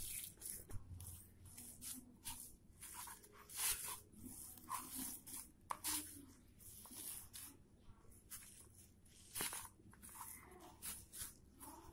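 Hands rubbing and kneading crumbly chhena with sugar on a steel plate: faint, irregular crunching and squishing, with fingers scraping now and then on the metal.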